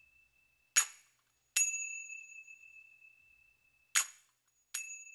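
Small bell-metal hand cymbals (ilathalam) of Koodiyattam accompaniment struck four times, alternating a short damped clink with an open strike that rings on with a high, bell-like tone.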